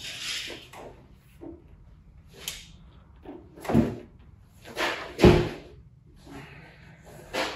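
Heavy round wooden tabletop being tipped and turned over on a blanket-covered workbench: rubbing and bumping, with two louder thuds about four and five seconds in.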